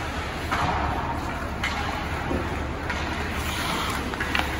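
Ice hockey rink ambience: a steady low hum and wash of arena noise, with a few sharp knocks near the end.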